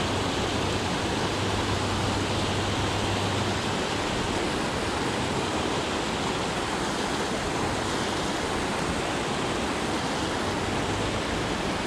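Water rushing steadily over a low dam spillway, a constant even wash of falling water.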